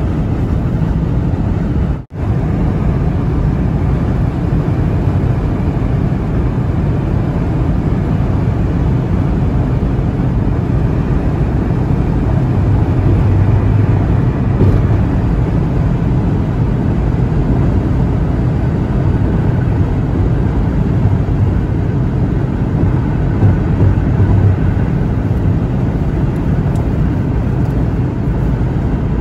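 Steady road noise inside a car's cabin at highway speed: tyres on the pavement and the engine's low drone. It drops out for an instant about two seconds in.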